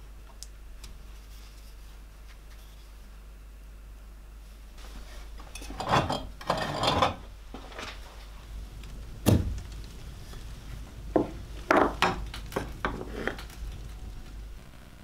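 Handling sounds on a wooden workbench: rustling scrapes about six seconds in, a sharp knock, then a quick run of light clinks of glass and metal from a glass jar, its glass lid and a knife.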